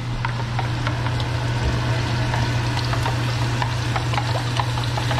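Stock poured into a hot pot of chile puree and onion, sizzling and bubbling: a steady hiss dotted with many small pops. A steady low hum runs underneath.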